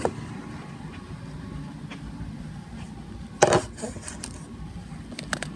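Handling noise: a short, loud clatter about three and a half seconds in and a few light clicks, over a steady low hum.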